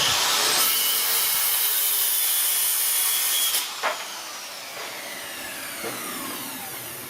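Electric power saw running and cutting wood for about three and a half seconds, then the blade spinning down after the trigger is released, its whine falling in pitch.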